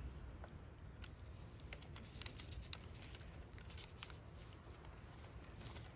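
Faint clicks and rustles from handling food while eating, over a low steady rumble.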